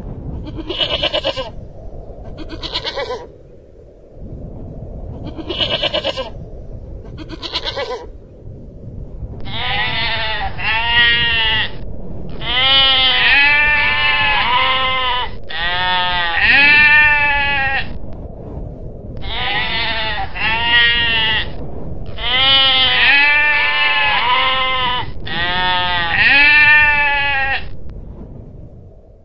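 Long-tailed goral calls: four short, harsh calls about two seconds apart, then a long run of loud, wavering bleats in groups separated by brief pauses.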